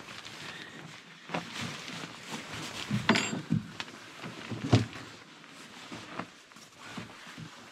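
Rustling of tent fabric and handling noise, with scattered knocks and thumps; the loudest thumps come about three seconds in and just before five seconds.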